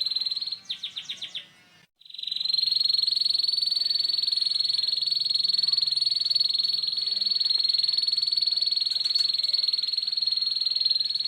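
Domestic canary singing a ngeriwik: a long, rapid, high-pitched rolled trill held on one steady pitch. Near the start the trill gives way to a quick run of about six separate notes and a brief pause, then it resumes.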